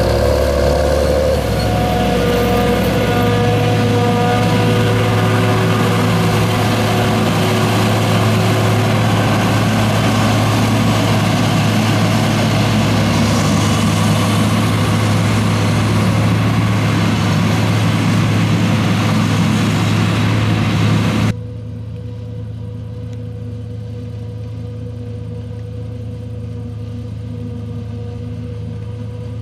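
Diesel engines of John Deere tractors and a self-propelled forage harvester working during a maize silage harvest, a loud steady machinery din with engine hum. About two-thirds of the way through the sound cuts abruptly to a quieter, duller engine hum.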